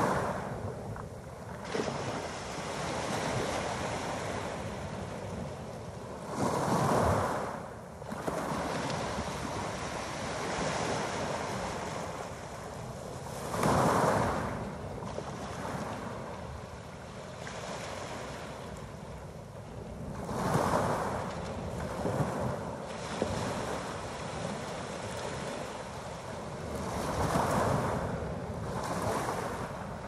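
Small sea waves breaking and washing up a shingle beach of rounded pebbles, each wash swelling and fading about every six to seven seconds over a steady surf hiss.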